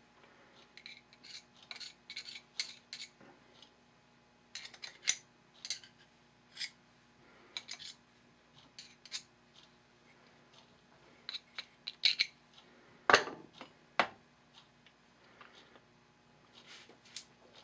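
Small steel revolver parts and a screwdriver clicking, tapping and scraping against each other as an 1851 Colt Navy cap-and-ball revolver is reassembled: scattered light metallic ticks, with a louder clack about 13 seconds in.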